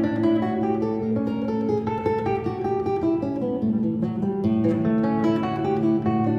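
Background music: solo acoustic guitar playing classical music, a quick run of plucked notes over low held notes.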